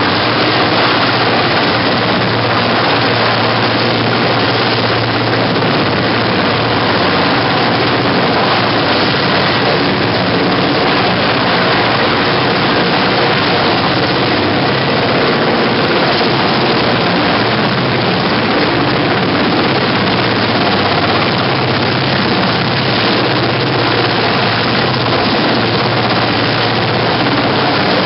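Mil Mi-8/Mi-17-type helicopter hovering close by: a steady, loud mix of turbine engine noise and main-rotor wash.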